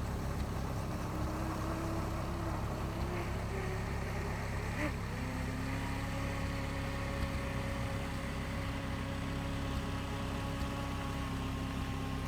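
Radio-controlled hydrofoil boat's motor running out on the water. A steady tone climbs in pitch over the first few seconds and holds level from about five seconds in, over a constant low background rumble.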